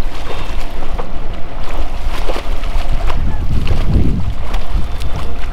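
Water splashing and slapping as people bathe in a lake, over heavy wind rumble on the microphone, with voices in the background.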